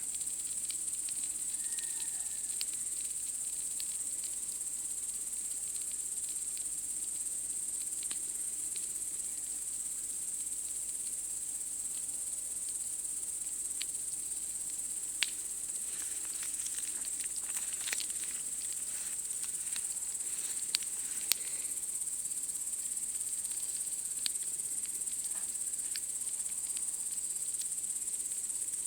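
Steady, high-pitched chirring of night insects, with a campfire crackling underneath: scattered small pops and a few sharper snaps in the second half.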